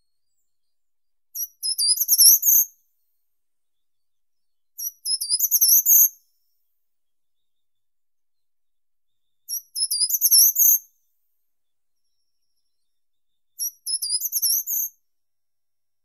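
Short-toed treecreeper singing: four short, high-pitched phrases, each a quick run of notes rising at the end, repeated every few seconds.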